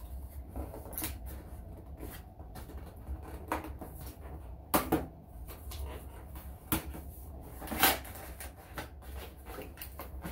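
A cardboard gaming-mouse box being handled and pried open: scattered clicks, taps and knocks of card and packaging, the sharpest about five and eight seconds in.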